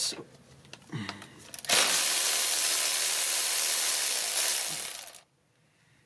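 Socket ratchet clicking on a fuel rail bolt, then a loud steady hiss for about three and a half seconds that cuts off suddenly.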